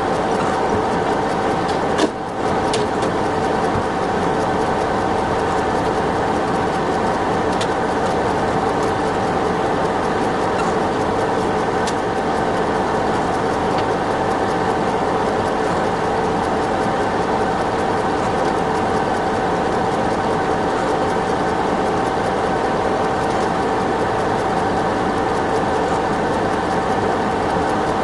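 A machine running steadily, a loud unbroken drone with a few fixed tones over a hiss, with one short knock about two seconds in.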